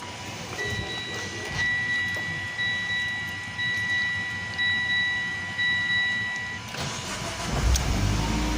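Car's warning chime sounding in even pulses about once a second for roughly six seconds. Near the end the Mitsubishi Lancer Evolution X's freshly swapped turbocharged four-cylinder engine cranks and starts.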